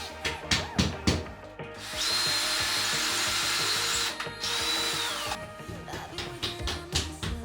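A handheld power tool, drill-like, runs in two spells with a steady high whine; the second spell winds down about five seconds in. Scattered clicks and knocks of handling come before and after.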